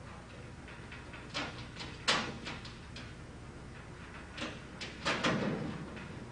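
Metal clicks and knocks on a steel locker as loose hardware is fitted back into the door's lined-up holes. A sharp clank about two seconds in is the loudest, with a cluster of knocks a little after five seconds.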